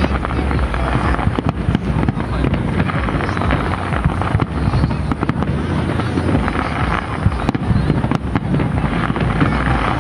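Fireworks display going off: a dense, continuous crackle of many small bangs and pops from aerial shells bursting.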